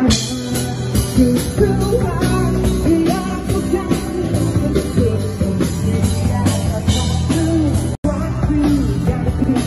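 Rock band playing live: drum kit, electric guitar and a male lead singer. The sound cuts out for an instant about eight seconds in.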